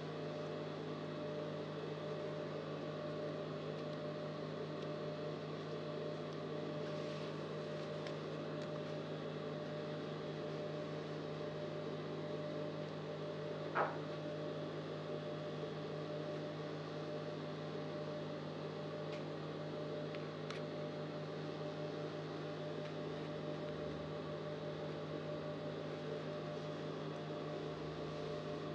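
Steady electric hum with a fixed low pitch, and one light click about halfway through.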